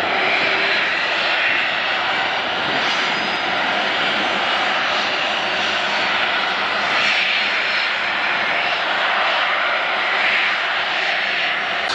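Airbus A330-243 MRTT's two Rolls-Royce Trent 700 turbofans running at taxi power as the jet taxis: a steady rushing jet noise with a faint high whine.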